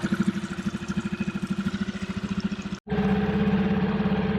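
Small outboard motor running steadily, pushing a dinghy along. The sound cuts out abruptly for an instant a little before 3 seconds in, then carries on at a steadier, slightly different pitch.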